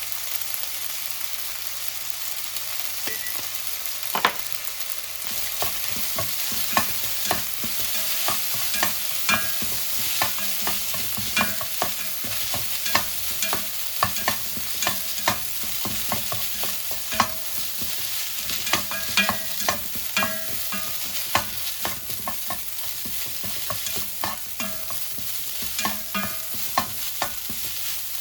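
Fried rice sizzling in a hot pan as it is stir-fried, with a cooking utensil knocking and scraping against the pan, one or two knocks a second from about four seconds in.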